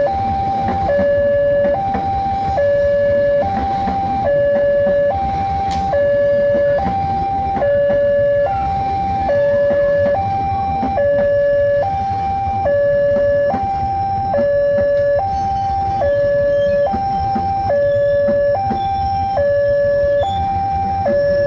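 A railway level crossing's electronic warning alarm sounds continuously, switching back and forth between a lower and a higher tone, each held a little under a second. Beneath it runs the low rumble of a passenger train's coaches rolling past.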